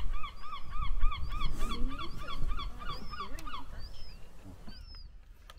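A bird calling in a fast series of short, arching pitched notes, about three or four a second, that slows to a few single calls and fades near the end. Wind rumbles on the microphone underneath.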